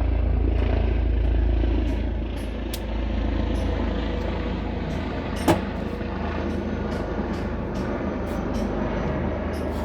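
A steady low rumble that eases off about two seconds in, with one sharp click about five and a half seconds in and faint scattered ticks.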